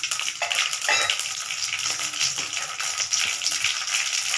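Mustard seeds sizzling in hot oil in a metal kadai, a steady fine crackle: the tempering stage, with the oil hot and the seeds already spluttered.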